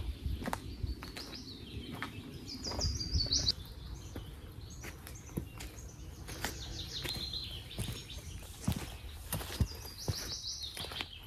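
Songbird singing a fast run of bright notes that drops in pitch, three times, over footsteps on a dirt path.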